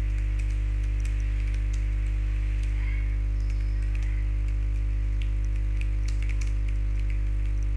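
Computer keyboard keys clicking at an irregular pace as code is typed, over a steady low hum that is the loudest sound throughout.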